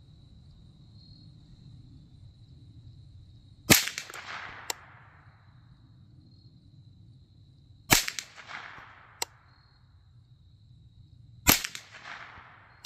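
Three shots from a Rock Island Armory (Derya) TM22-A-18 semi-automatic .22LR rifle, about four seconds apart, each with a short echoing tail, as part of a five-shot group at 50 yards. A smaller sharp click follows about a second after each of the first two shots.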